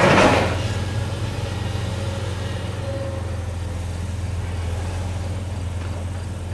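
Demolition machinery at work: a brief loud crash at the start, then a heavy machine's engine running steadily with a low drone.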